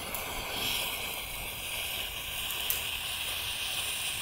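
Small campfire of soaking-wet sticks burning with a steady hiss, as the wet wood steams in the flames, and a couple of faint pops.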